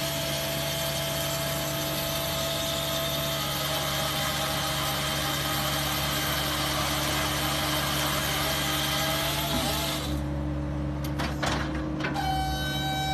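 BTD firewood processor running: a steady machine hum underneath, and a loud even noise of the saw cutting through a log for about ten seconds. A short whine follows near the end.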